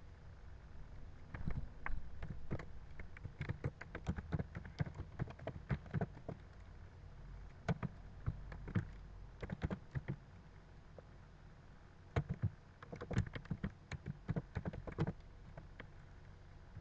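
Computer keyboard being typed on: rapid key clicks in three bursts, starting about a second in, near the middle, and again toward the end, with short pauses between.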